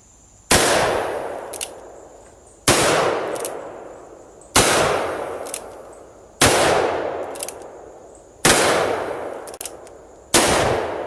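Six gunshots, evenly spaced about two seconds apart, each trailing off in a long echo, with a faint short snap about a second after each shot.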